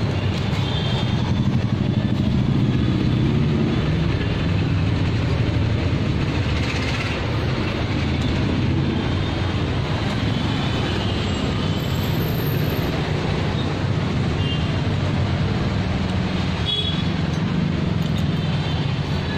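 Steady street noise from motor traffic: a continuous low rumble.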